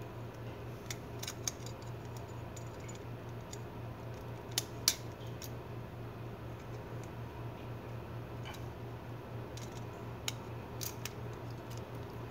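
Scattered small metal clicks and ticks from handling a Gerber MP600 multitool while its pivot screw is turned, a few isolated taps spread over several seconds.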